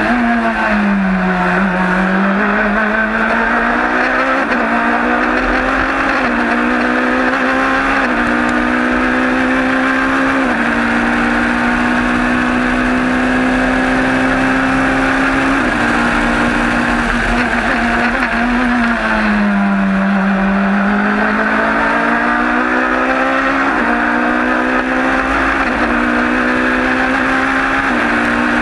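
Norma M20FC prototype race car's engine heard from the cockpit at racing speed. The revs fall while braking and downshifting into a corner about a second in and again near twenty seconds in, then climb back with quick step-like upshifts, over steady wind and road noise.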